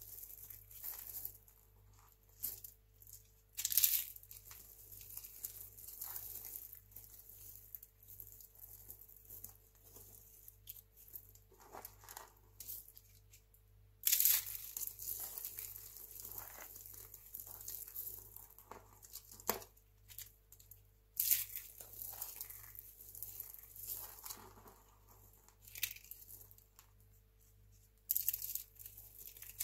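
Dry recycled soap crunching and crackling in a hand: crisp rustling of brittle soap flakes and rolled soap roses being squeezed and crumbled, in irregular bursts with a few sharper, louder crunches several seconds apart.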